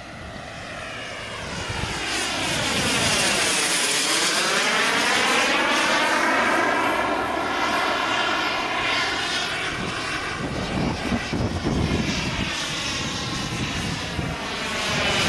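A PST 600R model jet turbine powers a Falcon 120 RC jet in flight. Its whine and rush grow louder over the first few seconds. The sound takes on a sweeping, phasing whoosh as the jet passes, about four seconds in and again near the end.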